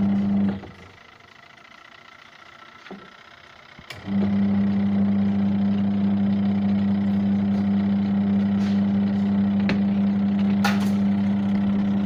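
Aqua twin-tub washing machine's wash motor humming steadily as it turns the pulsator. It cuts out about half a second in, is quiet for a few seconds with a faint click or two, then starts again and runs steadily. The machine is working again after a rat-chewed wire was found.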